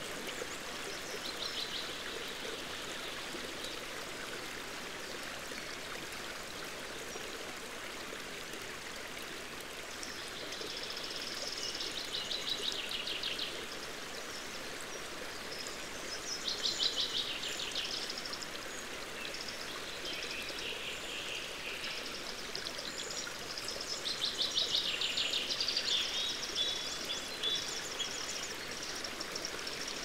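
Forest stream flowing steadily, with songbirds singing over it in several short trilled phrases, the clearest about halfway through and again near the end.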